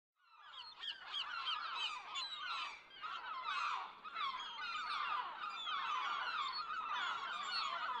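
Many birds calling over one another in a dense, continuous chorus of short, rapid calls, fading in at the start.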